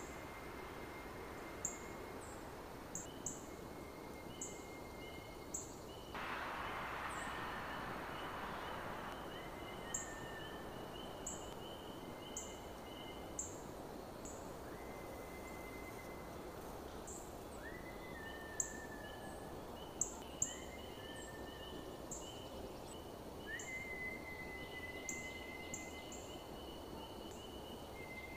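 Strange high whistling tones, each sliding up quickly and then holding steady for one to several seconds, come again and again. Many short, very high chirps are scattered through them. A rush of noise rises about six seconds in and fades by about nine.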